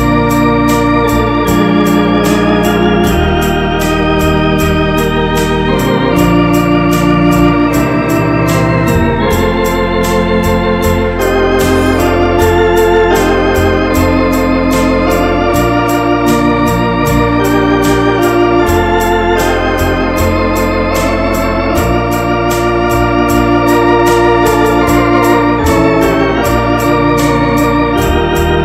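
Electronic home organ playing a slow gospel hymn: sustained chords with a wavering vibrato over a bass line that moves in steps, with a steady ticking beat.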